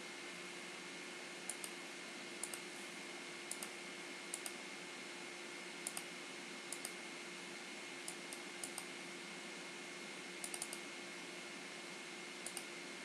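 Computer mouse button clicks, mostly in quick pairs, coming every second or so, over a faint steady hiss with a low hum.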